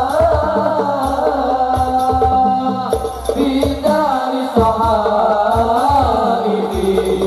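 Male voices singing an Islamic devotional song (sholawat) into microphones through a sound system, the lead melody in smooth, ornamented lines, over a steady hand-drum rhythm.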